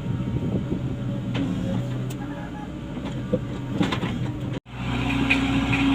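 Komatsu PC75US-3 excavator's diesel engine running steadily, with a few light clanks. The sound drops out for an instant a little past four and a half seconds, then the engine resumes slightly louder.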